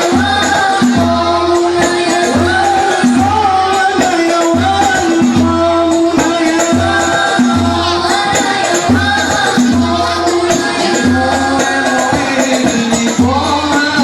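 Banjari ensemble performing: voices singing together over rebana frame drums, with a deep drum stroke about once a second and quicker hand-drum hits between.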